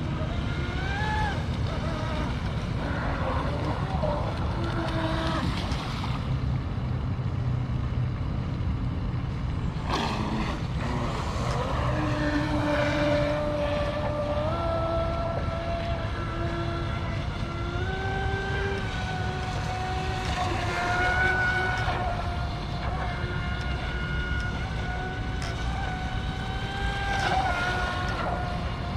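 Electric F1 RC racing boat's brushless motor whining steadily, its pitch stepping up and down as the throttle changes, over steady wind and water noise.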